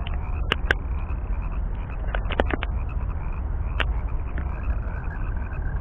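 Frogs calling: a steady chirping chorus with a few short, sharp croaks scattered through it, over a low steady rumble.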